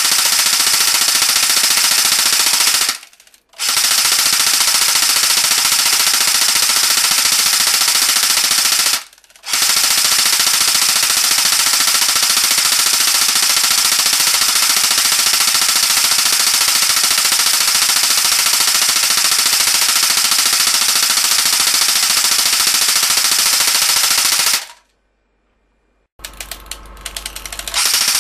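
Prototype Shoei MG42 airsoft electric gun with a high-cycle motor firing full-auto in long continuous bursts, a fast rattle of the gearbox cycling. Short breaks come about 3 and 9 seconds in, and the last burst runs about 15 seconds before stopping. Near the end come a few scattered clicks, then another burst begins.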